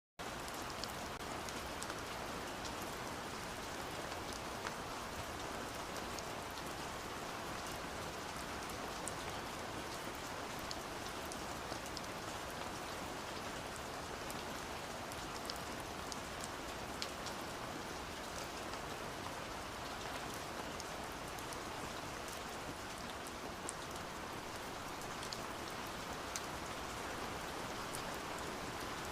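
Steady rain falling, a constant hiss with scattered close drops ticking.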